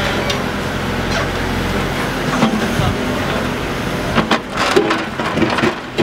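Excavator engine running with a steady low drone while its bucket works in a trench. From about four seconds in come several sharp knocks and scrapes of the bucket against rocky soil.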